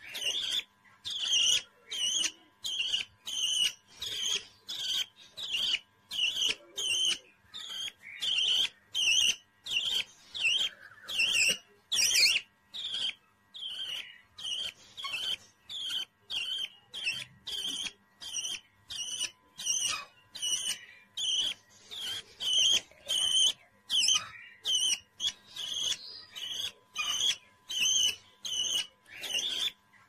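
Young budgerigar chirping over and over in short, high calls, about two a second, with one louder call about twelve seconds in.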